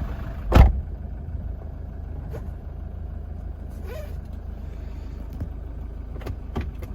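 Toyota Hilux 3.0-litre turbo diesel engine idling just after being started, a steady low rumble heard from inside the cab. A loud thump comes about half a second in, and a few light clicks follow later.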